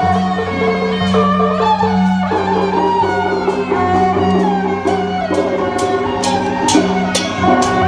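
Traditional-style instrumental music: sustained melody lines over a steady low drone, with sharp percussion strikes that come more often in the second half.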